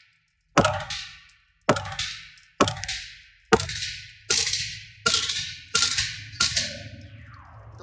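Gunshots at a shooting range: eight single shots about a second apart, coming a little faster toward the end, each sharp crack trailing off into echo.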